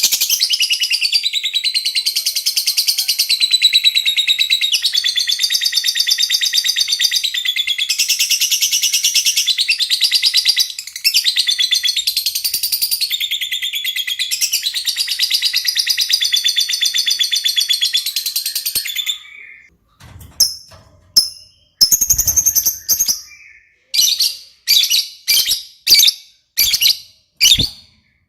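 Lovebird singing in full, continuous song: a long, unbroken run of rapid, high chatter for about nineteen seconds, then a string of short separate calls.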